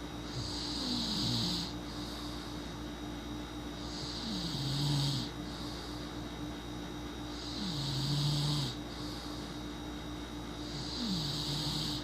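A person snoring in sleep: four snores, about three and a half seconds apart, each a hissing breath with a low tone that drops in pitch and then holds.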